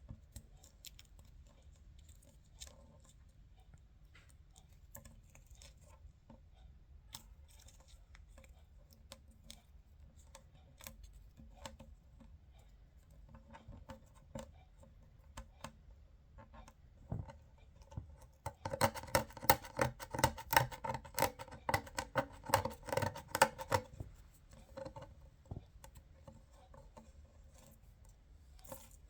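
Scattered small sharp clicks and taps, then a dense run of rapid, louder clicks lasting about five seconds, about two-thirds of the way through.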